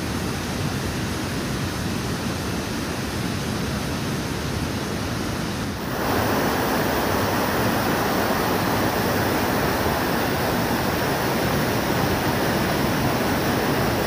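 Steady rush of a fast, rocky stream's white water cascading over boulders, louder from about six seconds in.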